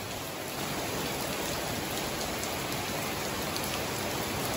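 Heavy pouring rain falling steadily on a garden.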